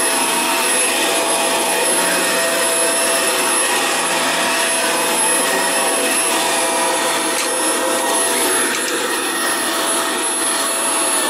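Dyson DC24 upright vacuum cleaner running while it is pushed over carpet, a loud steady rush of air with a constant motor whine. Near the end the whine stops and starts to fall as the motor winds down.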